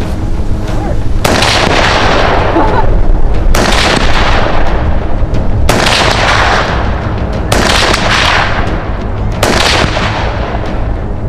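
Five rifle shots from an M-1 Garand, fired about two seconds apart, each followed by a long rolling echo that fades before the next.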